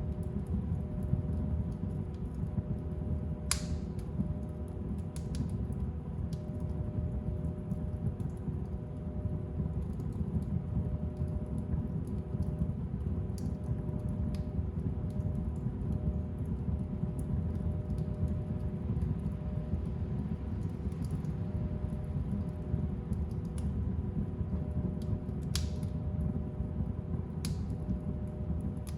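Fire burning in a fireplace: a steady low rumble with occasional sharp crackles and pops, the loudest a few seconds in and again near the end.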